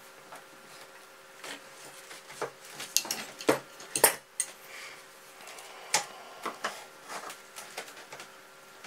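Metal clicks and clinks from handling a guided knife-sharpening jig: its blade clamp is loosened and the knife is taken out and turned over to be clamped again. About a dozen scattered sharp clinks, the loudest a few seconds in.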